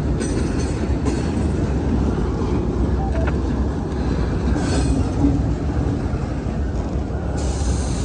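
Double-stack intermodal well cars rolling past: a steady rumble of steel wheels on rail, with a few sharp clicks and a brighter hiss coming in near the end.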